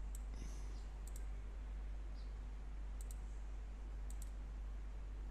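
Computer mouse clicking: a single click, then three quick pairs of clicks about a second or more apart, over a steady low electrical hum.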